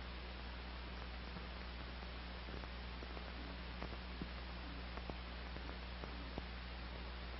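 Steady hiss and low mains hum with scattered faint clicks: the background noise of an old film soundtrack during a passage with no narration or music.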